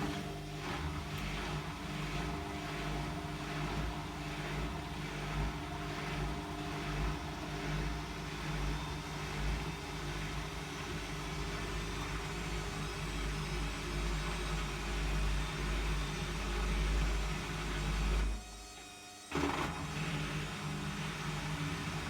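Hotpoint WMFUG742 washing machine running an overloaded load of towels: a steady motor hum over an uneven low rumble from the drum, growing somewhat stronger, with a break of about a second near the end.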